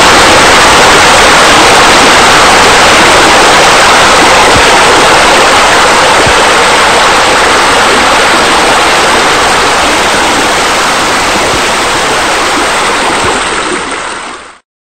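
Steady rush of falling water, fading a little and then cutting off about a second before the end.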